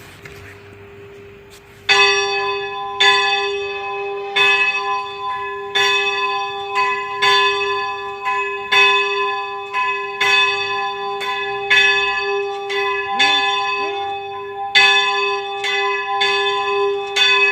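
A single church bell rung repeatedly, about one and a half strokes a second, each stroke sounding the same pitch, with its low hum ringing on between strokes. The strokes begin about two seconds in, over the hum still dying away from earlier ringing.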